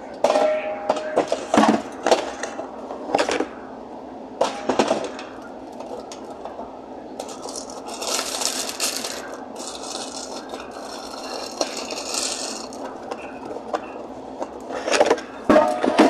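Aluminium soda cans knocking and clinking as they are taken from a cardboard 12-pack and set into a refrigerator: a run of sharp knocks, some ringing briefly, then a few seconds of rustling, then more knocks near the end.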